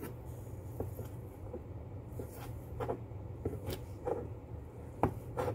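Kitchen knife slicing shiitake mushrooms on a cutting board: irregular short taps of the blade, louder twice near the end, over a steady low hum.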